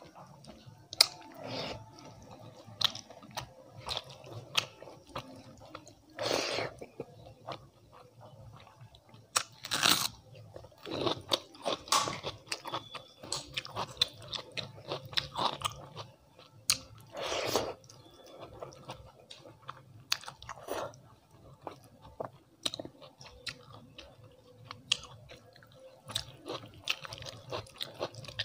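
Close-miked eating with the hand: fingers mixing and squishing rice with dal and vegetables on a steel plate, and chewing with crunchy bites, heard as many sharp clicks and crunches with a few longer, louder noises.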